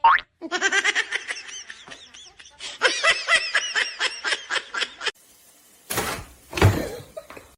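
A person laughing in rapid, high-pitched bursts of about four or five syllables a second, in two runs with a short pause between. Near the end come two short noisy bursts.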